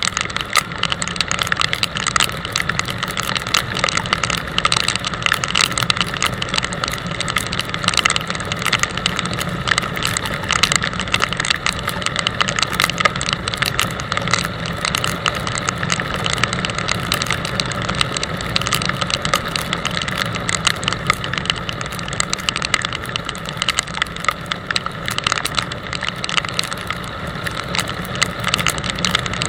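Touring motorcycle riding at a steady speed: the engine running evenly under wind and road noise from the wet road, with a rattle.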